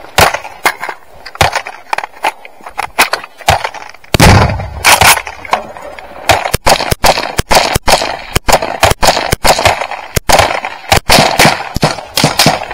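Close-range rifle gunfire: rapid, irregular single shots and short bursts throughout, with a deeper, heavier blast about four seconds in.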